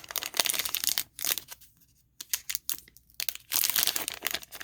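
Garbage Pail Kids sticker pack wrapper being torn open and crinkled in the hands. The crackling comes in spurts, pauses briefly a little over a second in, then picks up again and grows busier near the end.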